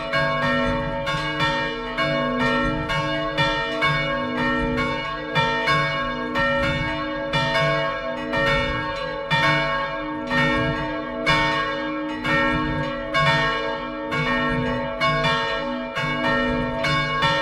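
Full peal of three swinging bronze church bells, tuned b¹, c² and b²: the 370 kg and 195 kg Fischer Brothers bells with a small Christelli bell. Their clappers strike in a steady stream of overlapping strokes, each strike ringing on over the others, heard at close range inside the belfry.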